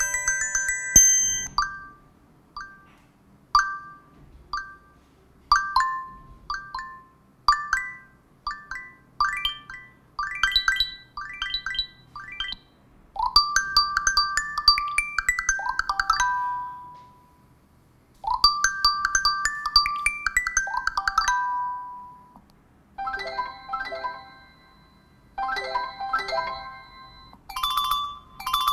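Built-in Google Pixel ringtones (Pixel Sounds) played one after another on a Pixel 3a XL. Each is a short electronic melody of bell-like and plucked notes, some in quick rising runs, lasting a few seconds and followed by a brief pause before the next one starts.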